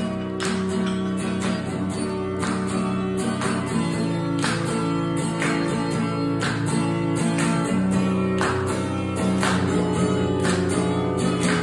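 Acoustic guitar strummed in a steady rhythm of full chords, played solo without singing.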